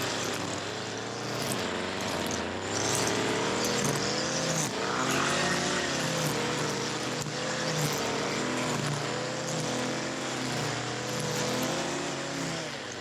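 Small petrol engine of lawn equipment running steadily under load, its pitch wavering up and down as the load changes.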